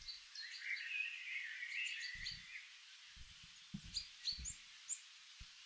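Songbirds chirping and twittering: a run of warbling song in the first couple of seconds, then scattered short high chirps. A few soft low thuds come in the second half.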